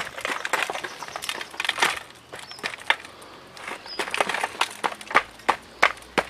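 Claw hammer knocking on the hard baked clay crust of a clay-roasted leg of lamb, cracking it open: irregular sharp taps and cracks, with pieces of dried mud breaking off and clattering onto a metal tray, and a brief lull a little over two seconds in.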